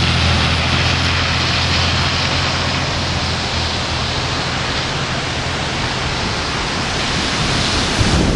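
Steady storm noise of wind and rain, an even hiss, with a low steady hum that fades out over the first few seconds.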